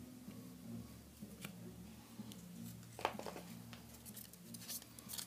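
Felt-tip markers being handled on a tabletop: a few soft clicks and taps, the loudest about three seconds in.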